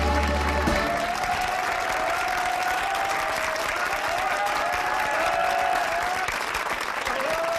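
Studio audience applauding steadily at the end of a musical number. Over it run a few high sustained calls, and the band's last low note cuts off in the first second.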